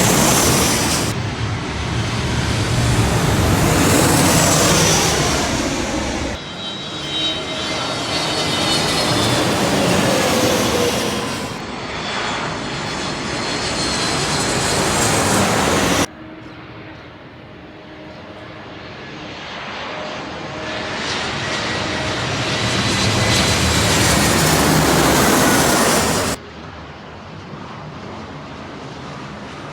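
A series of aeroplanes flying low overhead, one after another with abrupt cuts between them: each pass is a loud engine rush whose whine glides down in pitch as the plane goes by. Near the end the sound drops to a quieter, more distant engine.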